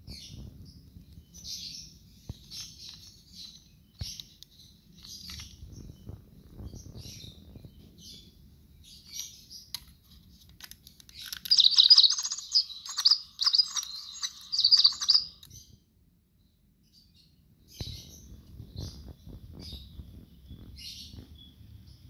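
Little Live Pets Lil' Bird electronic toy bird chirping and tweeting through its small speaker in short high bursts, with a louder, busier run of song in the middle. The chirping stops briefly about two-thirds of the way through, then resumes more softly.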